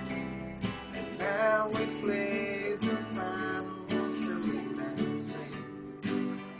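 Steel-string acoustic guitar strummed, a run of chords in a steady rhythm.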